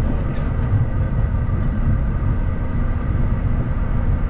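Cockpit noise of a Bombardier Challenger 350 taxiing: a steady low rumble from the wheels and airframe, with the Honeywell HTF7350 turbofans running at taxi power and a few steady high whines on top.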